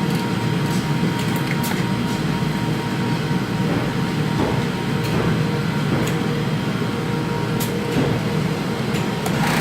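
Steady hum of sewing-factory machinery, with a few light clicks scattered through it.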